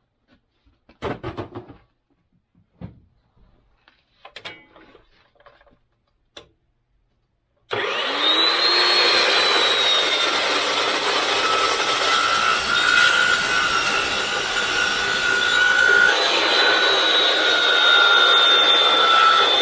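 A few scattered knocks and clicks, then about eight seconds in an Evolution mitering chop saw with a 14-inch 80-tooth Evo Max steel-cutting blade starts abruptly and runs loud and steady with a high whine, cutting through 3x3 inch, 3/16-inch-wall steel square tube.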